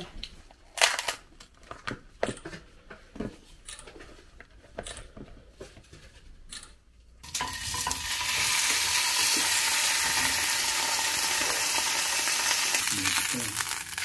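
A few light clicks and knocks of tableware, then about seven seconds in a loud, steady sizzling starts abruptly and keeps going, like food frying on a hot pan.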